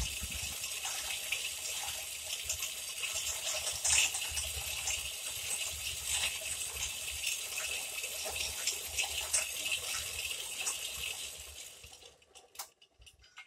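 Water gushing and splashing steadily as the bore-well column pipe is hoisted, with small knocks mixed in. It dies away about twelve seconds in.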